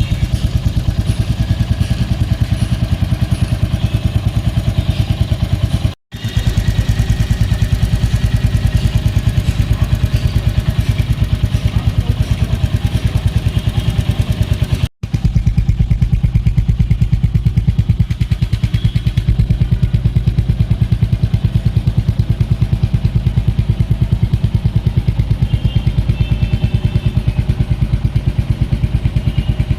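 Royal Enfield Hunter 350's single-cylinder engine idling steadily through its stock exhaust, a regular low thumping pulse with no revving. The sound breaks off for a split second twice, about six and fifteen seconds in.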